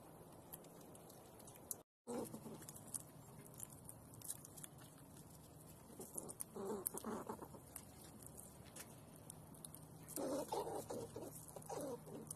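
A young fox squirrel feeding close up from a dish of sunflower seeds: a run of small sharp clicks as seeds are chewed and cracked, with two louder clusters of scrabbling and rustling in the seeds, around seven seconds and again around ten to twelve seconds in.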